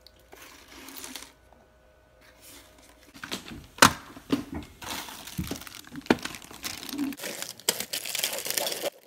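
Clear plastic bag of toy parts crinkling and rustling as it is handled, with a few sharp clicks, the loudest about four seconds in. The first few seconds are quieter, and the crinkling stops abruptly near the end.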